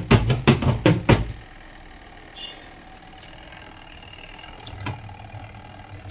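Marq washing machine knocking rapidly and rhythmically like drumming, about five knocks a second, which stop after just over a second and leave a low, steady hum of the machine running.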